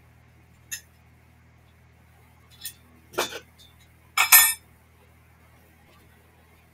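Metal clinks and clanks from a cable pulley station being handled at its base: a light click under a second in and another near the middle, then two louder clanks around three and four and a half seconds in, the second the loudest.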